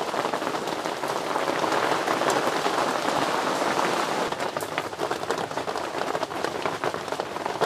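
Rain falling steadily: an even hiss thick with tiny drop ticks.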